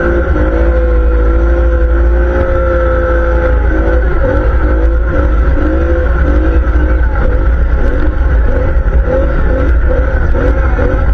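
ATV engine running under way, its note held steady for a few seconds, then rising and falling with the throttle over a heavy low rumble.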